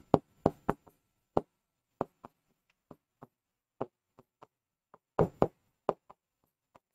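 A pen tip tapping and knocking on a writing board during handwriting: short, irregular clicks, busiest near the start and again about five seconds in.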